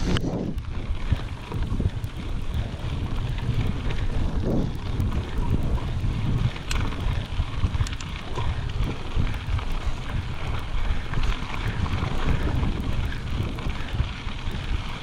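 Wind buffeting the microphone as a mountain bike rolls along a dirt road, with the rumble of the tyres on the rough surface and a few sharp clicks from the bike rattling over bumps.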